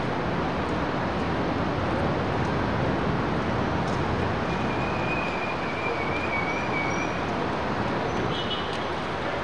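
City street traffic noise: a steady rumble and hiss of passing cars and buses. A faint high wavering tone rises out of it about halfway through.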